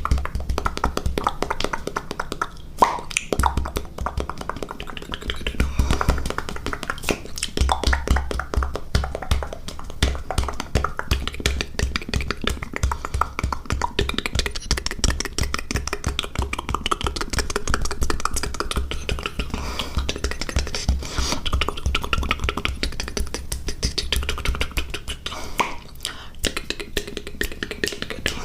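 ASMR mouth sounds close to the microphone: a dense, continuous run of fast mouth clicks and taps, with a low pulsing throb underneath.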